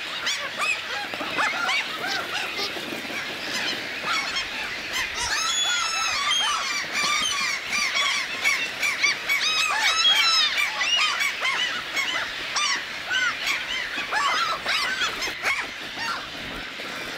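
A large flock of birds calling all at once: a dense, unbroken chorus of many short, overlapping calls.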